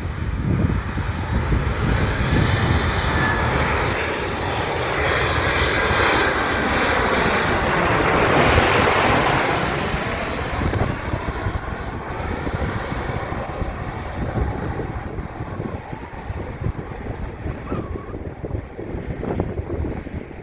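Jet airliner's engines passing by: the noise builds to a peak about eight seconds in, with a high whine falling in pitch as it goes past, then fades away. Wind buffets the microphone throughout.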